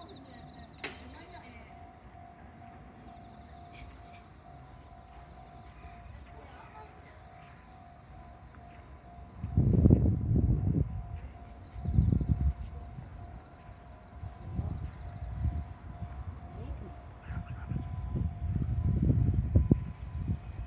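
Crickets trilling steadily, with a single sharp click about a second in. From about ten seconds in, louder irregular low rumbles come and go over the trilling.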